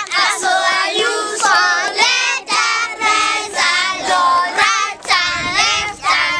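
A group of young children singing a song together, with hand claps keeping time about twice a second.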